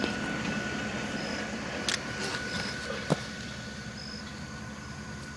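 Steady low background hum with two short clicks, about two and three seconds in.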